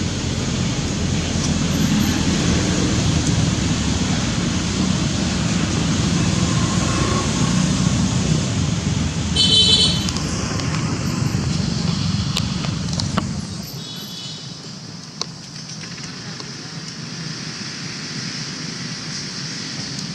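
Low rumble of passing road traffic that eases off about two-thirds of the way through. A brief high-pitched sound comes about halfway, and another just before the rumble fades.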